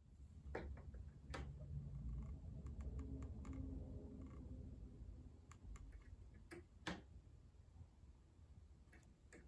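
Grand piano action out of the case being regulated. Keys are pressed and released and a regulating tool works among the hammers, giving a few scattered sharp wooden clicks and taps over a low rumble in the first half.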